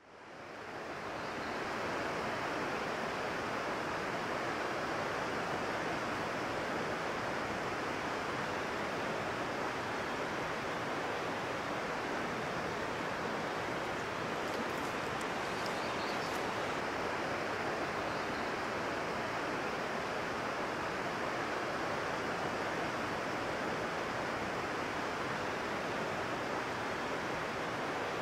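Steady rush of fast-flowing water, a constant even noise that fades in over the first second or two.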